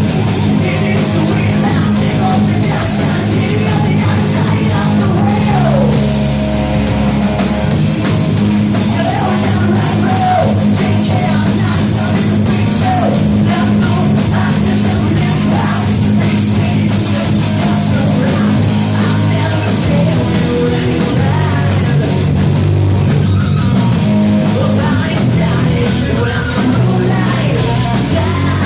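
Live rock band playing, loud and distorted, with shouted singing over bass and drums.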